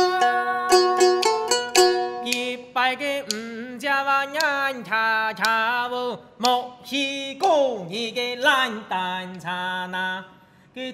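Hakka mountain song performance: a long-necked Chinese plucked lute plays with sharp bamboo-clapper clicks, and from about two seconds in a voice sings sliding melodic phrases over it. The music dies away just before the end.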